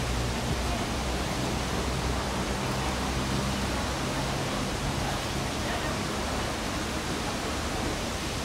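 Steady rush of water at a canal lock, with a narrowboat's diesel engine running slowly underneath as a low hum that fades after about four seconds.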